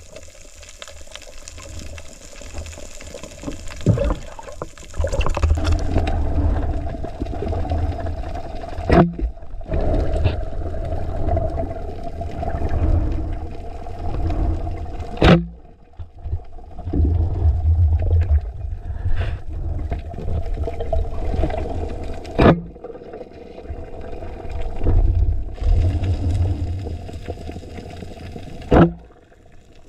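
Water noise picked up by an underwater camera: a rushing, gurgling wash with heavy low rumble from the diver's movement, a faint steady hum, and a sharp click about every six seconds.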